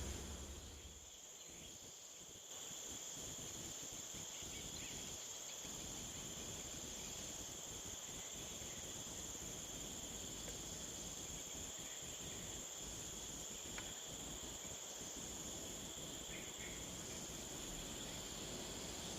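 Steady high-pitched chirring of insects, a continuous shrill drone over faint outdoor hiss.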